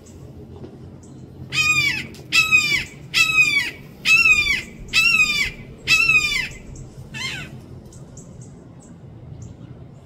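Red-shouldered hawk screaming a series of six loud, down-slurred "kee-ah" calls a little under a second apart, then one fainter call. These are agitated calls during a fight between two hawks on the ground.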